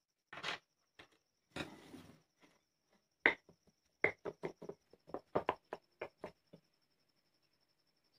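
A wooden pestle mashing boiled potatoes in a glass bowl. It gives a string of sharp knocks with a clink of glass: a few scattered at first, then a quick run of about four a second that stops shortly after the middle. A faint steady high tone sounds throughout.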